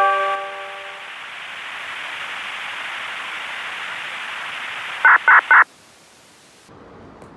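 Disaster-prevention radio broadcast heard through an ICOM IC-R30 receiver's speaker: the last chime notes die away into a steady hiss from the open channel. About five seconds in come three short loud beeps, and then the hiss cuts off suddenly as the transmission ends.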